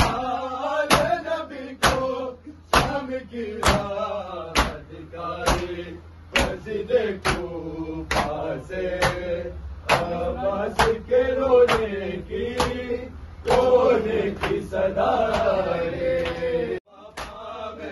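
Men's voices chanting a nauha, an Urdu mourning lament, over rhythmic chest-beating (matam): a slap of hands on bare chests lands about once a second in time with the chant. The chant breaks off briefly near the end while the slaps carry on.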